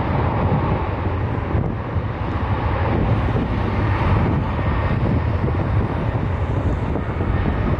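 Jet engines of a departing Boeing 737 airliner, a steady low rush of noise, mixed with gusty wind buffeting the microphone.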